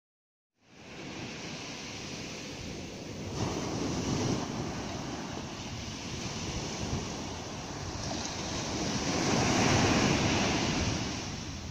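Sea surf breaking and washing up on a sandy, pebbly beach as a steady rushing wash. It swells twice, about four seconds in and again near the end.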